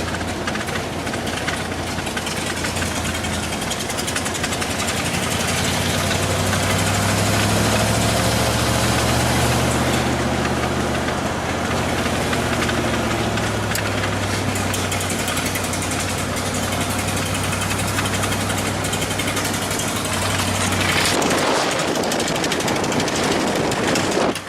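Vehicle driving on the road: steady engine and road noise, swelling a little around a quarter of the way in and easing again.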